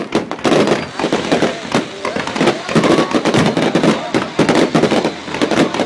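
Fireworks exploding in a rapid, dense string of cracks and pops, several a second, with crowd voices chattering underneath.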